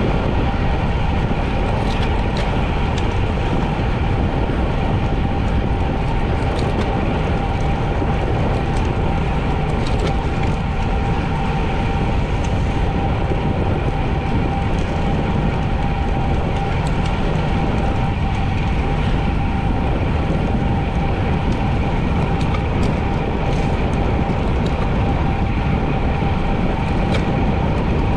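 Wind rushing over a bicycle-mounted action camera's microphone and tyre noise from a bike riding at speed: a steady rumble with a constant hum and a few faint ticks.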